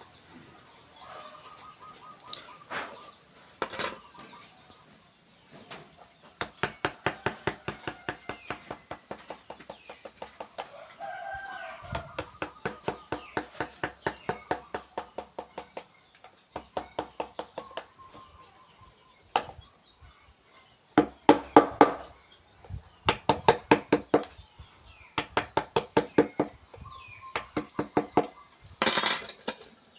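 Runs of quick, even taps, about six a second with short pauses between: a mallet driving a carving chisel into wood. A chicken calls faintly in the background.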